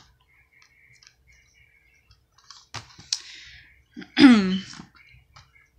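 Plastic DVD cases clicking and knocking together as they are handled and stacked, a few sharp clicks after a quiet start. About four seconds in, a short falling vocal sound is the loudest thing.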